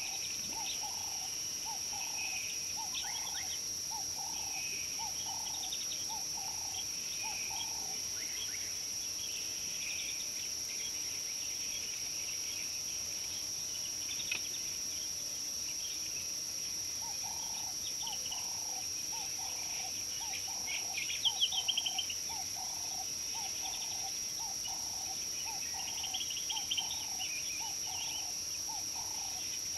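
Steady high-pitched insect drone in African bush, with birds calling over it: scattered chirps, a low note repeated in a steady series of about one and a half a second that stops partway through and starts again, and a short rattling burst of chirps about two-thirds of the way in.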